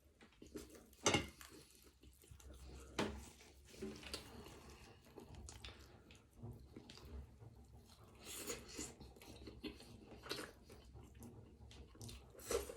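Close-up chewing and mouth sounds of a person eating, with a few sharp clicks of cutlery or dishes, the loudest about a second in and near the end.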